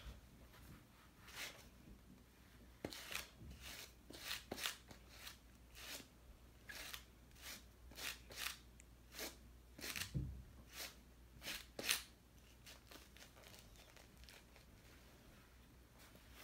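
Fingers brushing over a patch of reversible flip sequins on a board book page, a faint run of short scratchy swishes as the sequins flip from one colour to the other.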